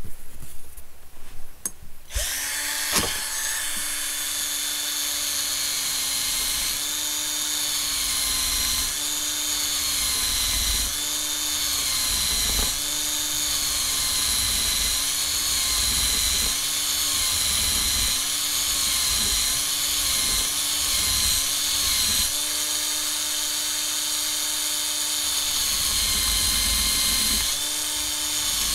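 Small electric drill spinning a brass lock pin while a hand file is worked back and forth against it to cut the pin's profile. The motor's steady whine starts about two seconds in, and its pitch dips again and again as the file presses in.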